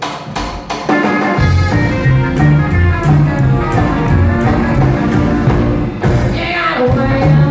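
Live rockabilly band starting a song: drum hits for about the first second, then the full band comes in with drums and a steady, prominent bass line.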